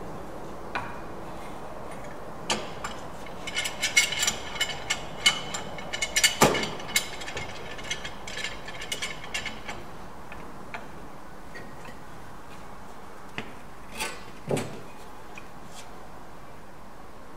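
Hand tools and timber handled on a wooden workbench: a busy run of small sharp clicks and light knocks through the middle, then a few single knocks near the end.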